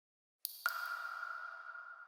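A single bell-like chime or ping: a soft swish, then a sharp strike with one clear ringing tone that fades away slowly.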